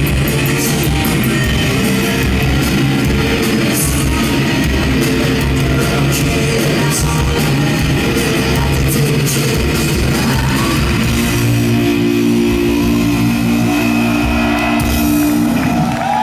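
A rock band playing live with electric guitar and drums, heard from within the audience. From about eleven seconds in, a chord is held and rings on, closing the song.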